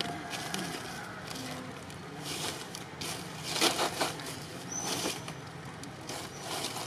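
Long-tailed macaques rustling and scuffing as they move on stone and dry leaves, in several short bursts, the loudest about three and a half seconds in. A brief high whistle sounds about five seconds in.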